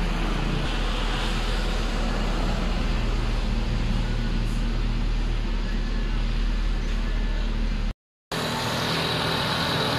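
Car engine idling steadily, heard from inside the cabin. After a brief cut near the end, the idle is heard with the hood open, with a thin steady high whine over it.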